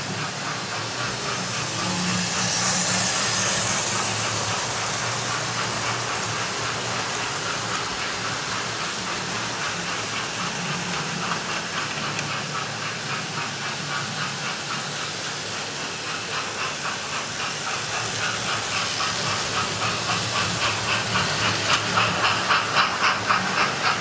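Model trains running on a layout: steady running noise from the locos and wheels, with the hiss of a DCC sound-fitted steam locomotive's sound effects, strongest a couple of seconds in. Near the end a rhythmic beat of about three pulses a second grows louder as a train of coaches passes close by.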